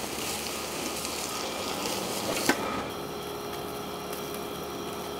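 Marinated beef short ribs sizzling steadily on a grill grate over a live fire as the fat renders. There is a single sharp click, like metal tongs touching the grate, about two and a half seconds in.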